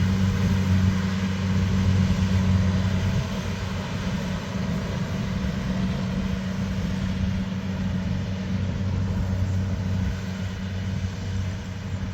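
Engine of a heavy machine running steadily with a low drone, a little louder for the first three seconds and then easing off slightly.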